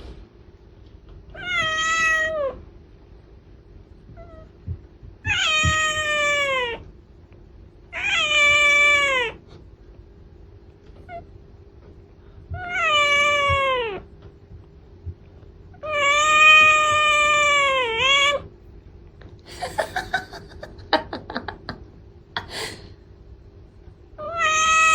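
A domestic cat meowing: six long, drawn-out meows a few seconds apart, each lasting one to two seconds with the pitch dropping at the end. A few clicks come between the last two.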